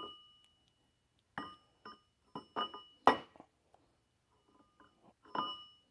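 Sharp metal-on-metal knocks and clinks, about seven spread unevenly, each ringing briefly, from tools and parts being worked on a stripped diesel engine block.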